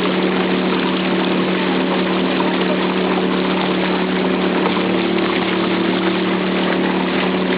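Vehicle engine running steadily, a constant drone with a low hum.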